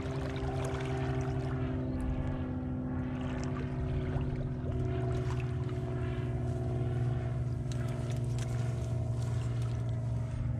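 Steady drone of a distant motor holding one pitch throughout, with small splashes of water as a hand works through the shallow marsh.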